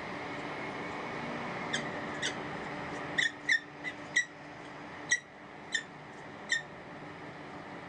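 Peregrine falcon giving about ten short, sharp chip calls at irregular intervals over a steady background hum.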